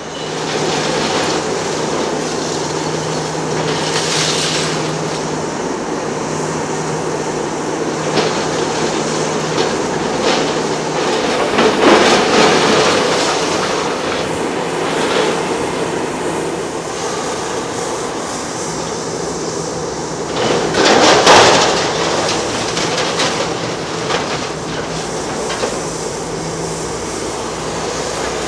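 Hitachi Kiesel KMC 400 long-front demolition excavator working: its diesel engine hums steadily while the demolition shear crunches and breaks concrete. Louder crashes of breaking material come about twelve and twenty-one seconds in.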